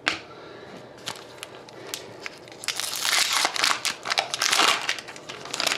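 Foil wrapper of a trading card pack crinkling as it is handled and opened, after a few light clicks; the crinkling is loudest in the second half.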